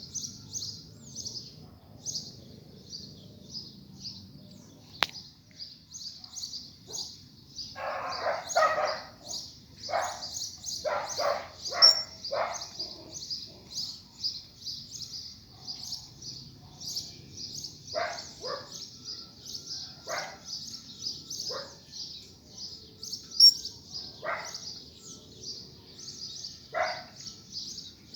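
Small birds chirping in a fast, steady run of high notes, about three or four a second. From about eight seconds in, clusters of lower, shorter calls join in now and then.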